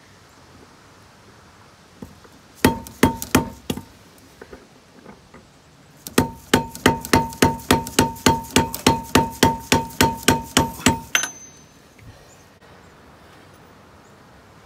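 Hammer blows on a large socket driving a new oil seal into the aluminum gimbal housing of a Volvo Penta SX sterndrive, each strike ringing metallically. There are a few blows about two and a half seconds in, then an even run of about sixteen strikes, roughly three a second, stopping about eleven seconds in.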